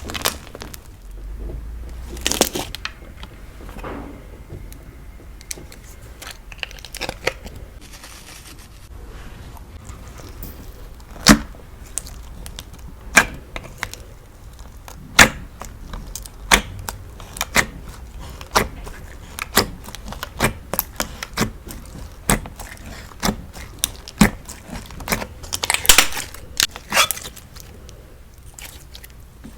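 Slime being squeezed and pressed by hand, giving sharp, irregular clicks and pops about once a second, with a couple of longer crackly bursts near the start and near the end.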